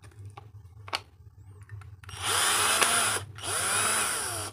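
Drill-driver with a hex bit backing out the base-plate bolts of a Black & Decker detail sander, running in two bursts of about a second each from about two seconds in, its motor pitch rising and falling as the trigger is squeezed and eased. A small click about a second in.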